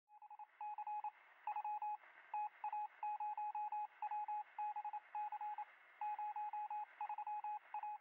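Morse code: a single high beep keyed on and off in quick short and longer pulses, over a steady radio-like hiss.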